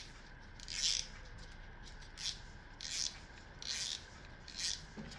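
Short rubbing and scraping sounds, about five of them roughly a second apart, as the spool is worked off a Penn Fierce II 3000 spinning reel by gloved hands.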